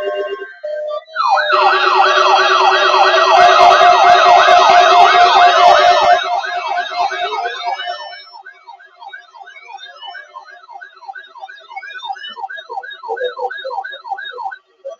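Several weather alert radios sounding their alarms at once, triggered by the weekly test signal: overlapping warbling tones rising and falling a few times a second over a steady tone. Some stop after about six seconds, and fewer, quieter warbles carry on until they cut off near the end.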